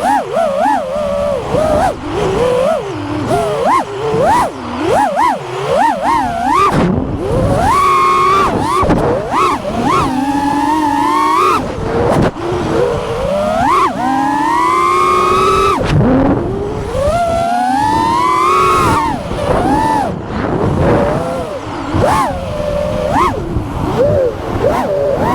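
FPV quadcopter's brushless motors and propellers whining as it flies close by. The pitch rises and falls constantly with the throttle, with several long climbing sweeps in the middle and quick punches and dips around them.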